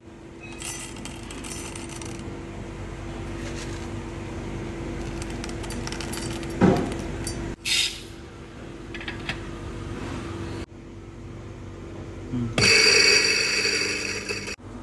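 Roasted coffee beans clattering into a stainless steel dosing cup, then poured into a grinder's hopper, over a steady low hum, with a sharp thump about halfway. Near the end an electric coffee grinder runs for about two seconds, grinding into the dosing cup.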